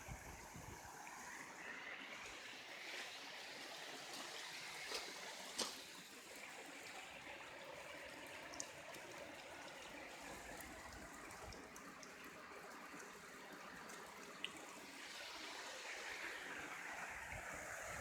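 Hot spring water trickling and running in a small rocky stream, a steady gentle flow, with a few faint knocks.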